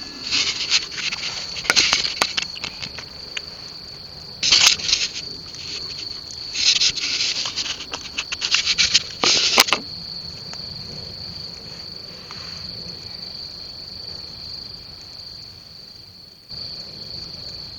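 Field insects trilling steadily at one high pitch, with loud bursts of crackling and rustling in the first ten seconds.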